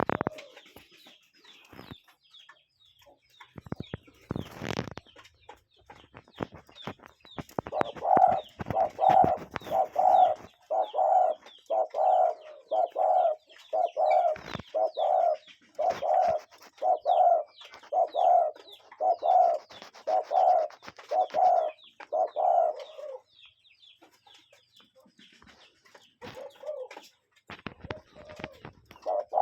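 Cuckoo calling: a long, even series of low hooting notes, about one a second, then a pause and more calls near the end. Before the calls there is a run of clicks, and faint high chirps from other small birds sound throughout.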